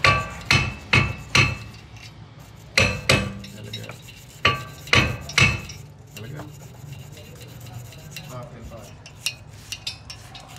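A thin metal tool striking and scraping the rusty wheel hub of a car's brake disc assembly, each hit a sharp ringing metallic clink: about nine in uneven groups over the first six seconds, then quieter scraping and a few light clicks.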